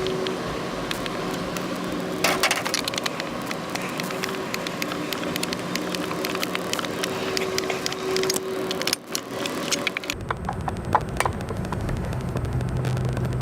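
Rapid clicking and tapping of a Torx tool and screws on the plastic housing of a Stihl string trimmer as its case is taken apart. The clicks thin out near the end.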